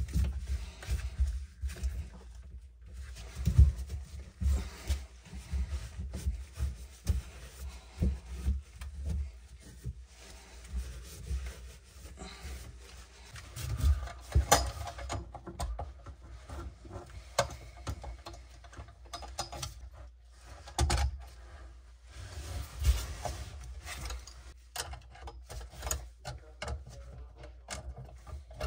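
Irregular knocks, clicks and rubbing as the plastic sink drain trap and pop-up parts are handled and worked with pliers.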